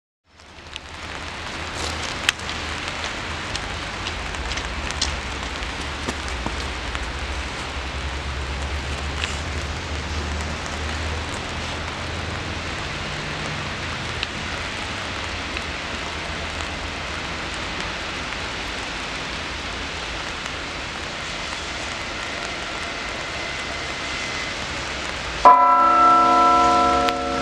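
Steady hiss of open railway-yard ambience with a low rumble underneath. About two seconds before the end a train horn cuts in loudly, a chord of several held tones.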